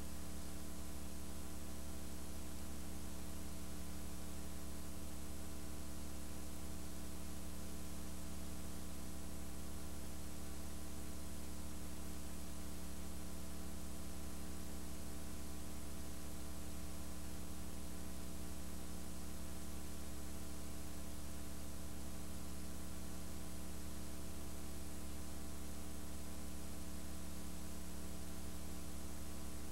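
Steady electrical hum with an even hiss, unchanging throughout: noise in the recording itself, with no sound of the arena coming through.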